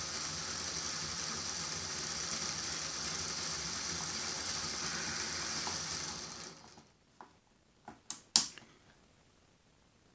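Canon electric motor driving through an MSC gearbox, turning the coupled wheels of a model Finney A4 locomotive chassis on rolling-road rollers: a steady whirr that runs down and stops about six and a half seconds in. A few sharp clicks follow, the last the loudest.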